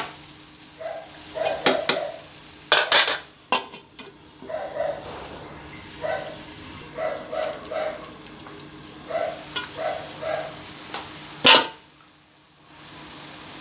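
A metal utensil clanks and scrapes in a frying pan of pork and liver strips, and a metal pan lid clatters, loudest about three-quarters of the way through, over a faint steady sizzle. Short, repeated yelps sound in the background throughout.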